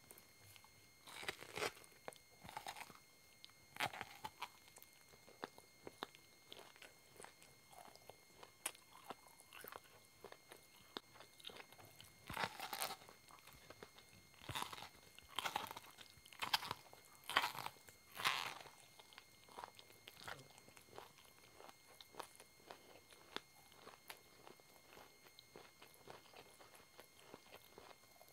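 Bites into a cob of red-and-white corn on the cob, with crisp crunching as kernels are torn off, then chewing with small wet clicks. The loudest crunches come in a run about halfway through.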